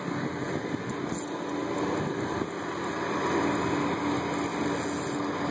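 A steady engine drone with a faint hum, swelling slightly midway, over wind noise on the microphone.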